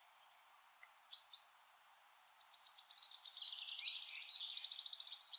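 Wood warbler singing: two short notes about a second in, then a run of notes that speeds up into a fast, shivering trill lasting a few seconds and ending near the close.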